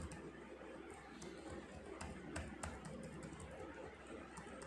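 Faint, irregular clicks from a computer being operated to scroll through a document, a few spread over the seconds, over a low steady hum.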